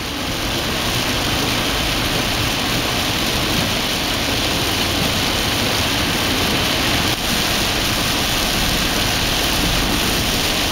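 A car driving through heavy rain on a soaked road, heard from inside the cabin: a steady hiss of rain on the body and tyres on standing water, with a low rumble of engine and road noise underneath.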